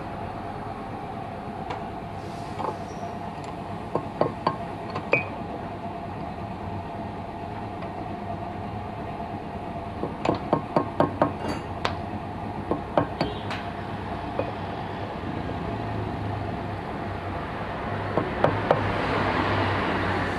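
Metal tools clinking and tapping against metal parts in short runs of sharp clicks, busiest about halfway through, over a steady hum.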